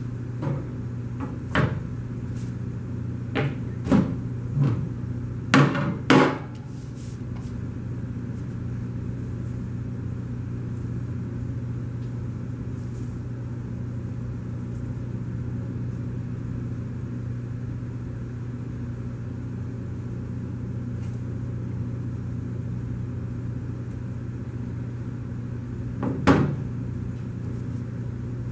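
A soap loaf mold being handled on a table: a few knocks and clatters in the first six seconds as the mold is lifted out of its wire frame and set down, then a steady low hum, and one more knock near the end as the soap is worked out of the mold.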